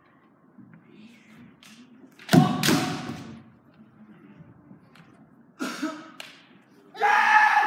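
Kendo bout: a sharp hit with a loud kiai shout about two seconds in, another hit and shout about six seconds in, and a long held kiai shout near the end.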